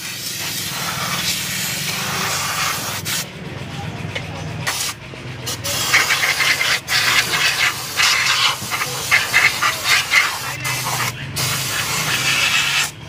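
Hand-pump pressure sprayer hissing as it jets cleaning fluid onto a metal motorcycle engine side cover over a basin. The spray stops for a moment a few times, and is louder and more spattery in the second half.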